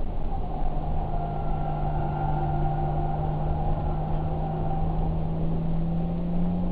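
Vehicle engine running steadily at a constant pitch, rising slightly near the end.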